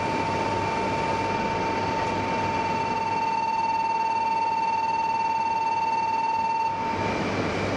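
Shinkansen platform departure bell ringing continuously on one steady high tone, signalling that the train is about to leave; it cuts off about seven seconds in.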